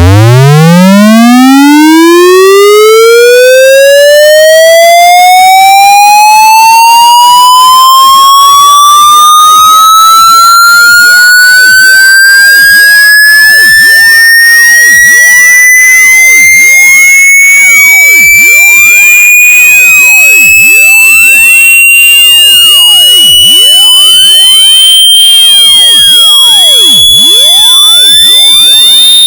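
Synthetic buzzy tone with many overtones sweeping steadily upward in pitch, from a low hum to a high, piercing whine, very loud throughout.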